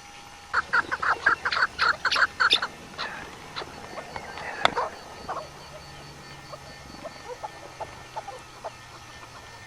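A bird calling in a rapid series of loud, harsh notes, about five a second, for about two seconds, then fainter scattered calls. A single sharp crack about halfway through is the loudest sound.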